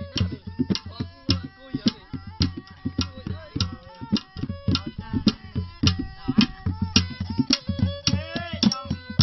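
Khmer traditional music (pleng boran) played live: a bowed two-string fiddle (tro) carries a gliding melody over hand-drum strokes in a steady beat of about two a second.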